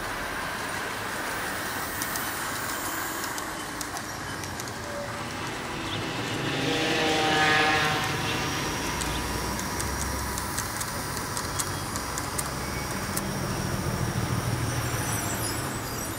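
H0-scale model trams running on the layout: a small electric motor whine swells and fades about seven seconds in as one passes close, followed by scattered ticks of wheels on the track and a low running rumble as another tram approaches near the end.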